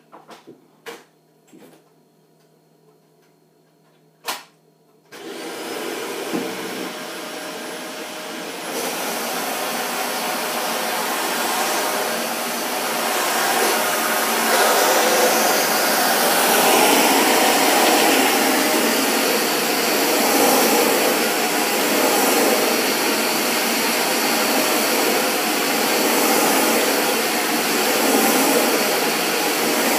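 A few sharp clicks, then a Dyson DC40 Animal upright vacuum cleaner switches on suddenly about five seconds in. Its motor runs with a steady whine and rush of air, growing louder and brighter over the next several seconds, as it is pushed back and forth across the wooden floor.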